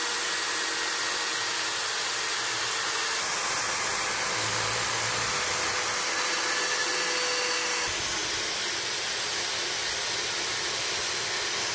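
Die grinder running steadily with a rotary burr grinding the cracked edge of a cast-iron bearing housing, prepping the break for welding. It makes an even hiss with a faint steady whine.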